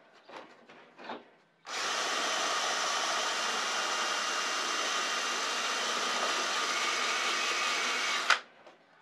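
Cordless drill running at a steady speed for about seven seconds as its countersink bit cuts into a ski binding plate, widening the countersink for a screw that still fit too tight. A few light handling clicks come before it starts, and it stops abruptly with a click.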